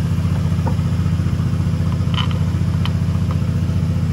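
A steady low mechanical drone with a fast flutter, like a motor or engine running, with a few faint clicks about two to three seconds in.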